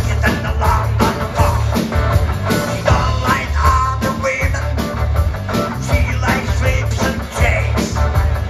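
Live rock band playing: electric guitar, bass guitar and drum kit, amplified through the club's stage speakers.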